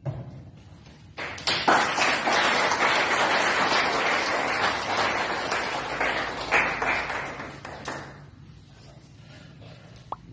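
An audience applauding: dense clapping starts about a second in, holds steady for several seconds, then dies away.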